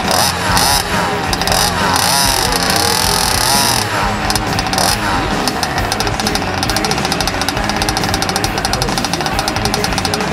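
ROVAN Baja 25cc two-stroke petrol engine of a large-scale RC buggy, revving up and down as it drives. About four seconds in it drops back to a fast, even idle beat.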